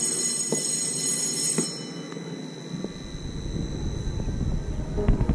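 A high, steady warning tone sounds for the first second or two. About three seconds in, the frisbee ride's drive starts and a low rumble builds as the gondola begins to turn, with knocks and clatter near the end.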